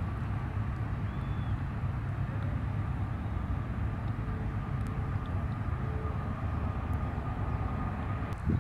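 Distant turbofan engines of an Airbus A300-600ST Beluga on final approach: a steady low rumble with a faint steady whine above it. A brief knock near the end.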